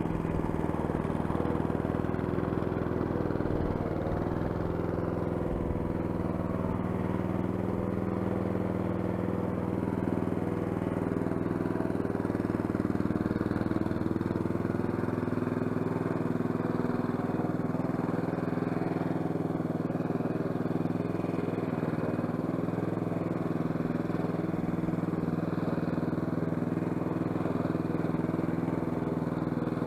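Honda petrol lawn mower engine running steadily, with a slight shift in its note about halfway through.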